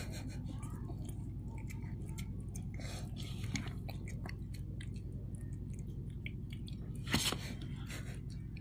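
A cat chewing soft durian flesh: a run of small wet clicks and smacks, with a louder click about seven seconds in. A steady low hum runs underneath.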